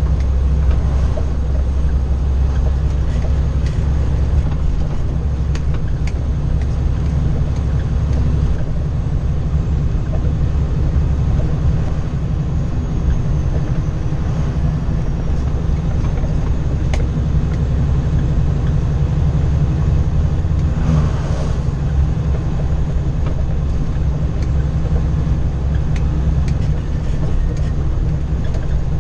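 Inside the cab of a 2012 Kenworth W900L rolling down the road, its Cummins ISX inline-six diesel drones steadily under road and tyre noise.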